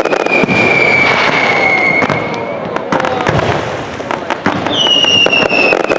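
Fireworks display going off: rapid bangs and dense crackling. Two long high whistles slowly fall in pitch, the second starting near the end.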